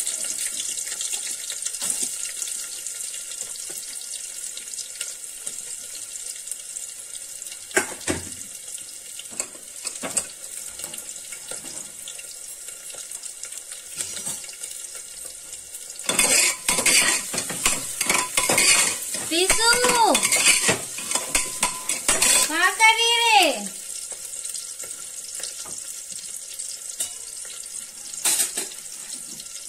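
Steel kitchen vessels and utensils clattering and scraping, loudest in a busy stretch about halfway through that includes two short squeaks rising and falling in pitch, over a steady hiss.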